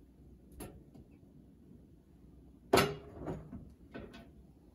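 Pre-cooked chicken breasts being torn and handled on a wooden cutting board: a few soft knocks and taps, with one sharp knock a little past halfway through.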